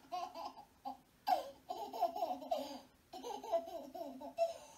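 A recording of a child laughing, played through a computer speaker: bouts of laughter broken by short pauses about a second in and about three seconds in, stopping near the end.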